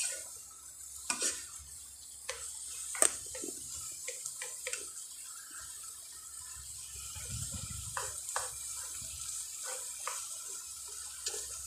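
A cooking spoon stirring instant noodles and carrots in a metal pan, with scattered light knocks and scrapes against the pan over a faint wet simmer.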